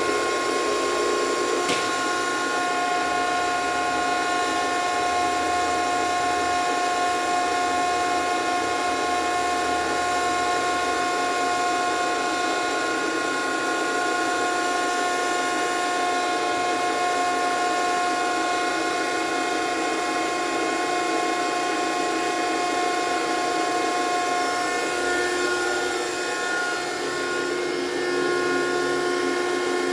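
Landis universal cylindrical grinder running under power: a steady machine hum with several constant whining tones from its motors and drives. The pitch of the lower whine shifts slightly a little before the end.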